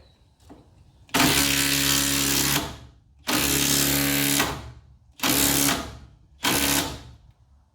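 Power driver running a 6-1/4-inch ThruLOK structural screw through a barn post and beam in four bursts, the first two long and the last two shorter, as the lock on the far side draws the joint tight.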